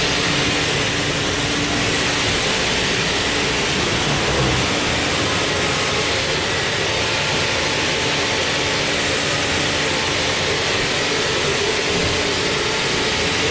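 Sawmill machinery running steadily and loudly: an even hiss with a constant low hum.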